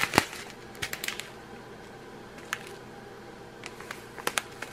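Small plastic bags of round resin diamond-painting drills being handled, giving scattered light clicks and taps, with a cluster about a second in and several more near the end.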